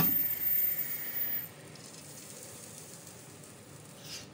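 A pot of khichdi, rice and mung dal in a reduced tomato broth, bubbling at the boil with a steady hiss. The hiss is louder for the first second and a half, then drops to a quieter steady level.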